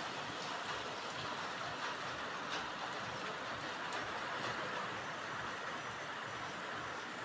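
Heavy rain falling steadily: an even hiss with a few faint ticks.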